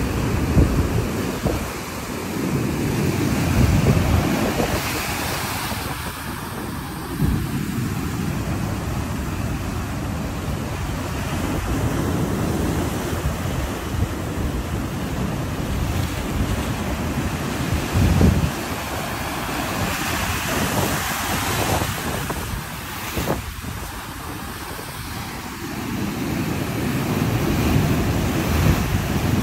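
Rough surf breaking and washing over a rocky shore, surging and easing, with gusty wind buffeting the microphone.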